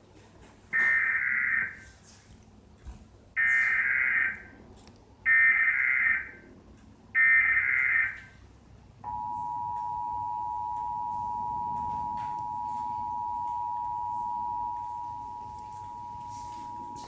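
Emergency Alert System tones: four short bursts of the digital SAME data signal, then, about nine seconds in, the steady EAS two-tone attention signal (853 and 960 Hz) sounding without a break. The data bursts are the loudest sounds.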